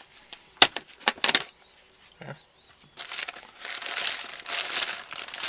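A few sharp clicks and knocks, then from about three seconds in a steady crinkling and rustling of the smoke-mix packaging being handled and opened.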